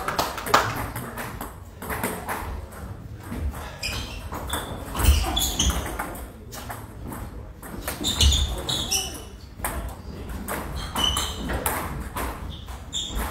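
Table tennis ball clicking off bats and the table in a rally, with more ball clicks from other tables, a few short high squeaks and a murmur of voices.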